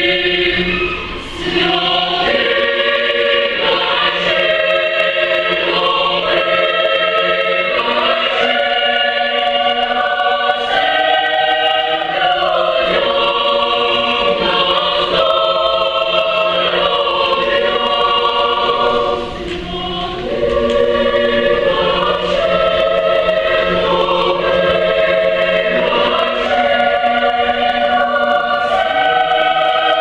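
Children's choir singing in parts: held chords that change about once a second, with two short breaks in the singing, one about a second in and another about two-thirds of the way through.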